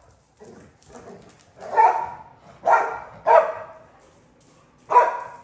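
Dog barking in short, sharp single barks: a few faint ones early, then three loud barks close together about two to three and a half seconds in, and one more near the end.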